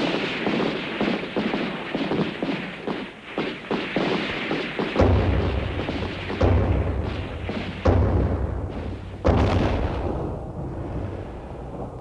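Gunfire: a rapid run of sharp shots, then four heavy booming shots about a second and a half apart, each ringing out and fading.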